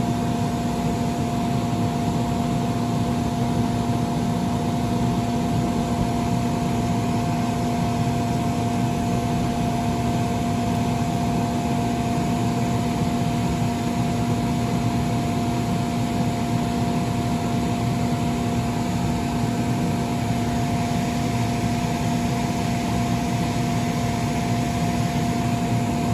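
Electric inflation blower of a bounce house running steadily: a constant hum over rushing air.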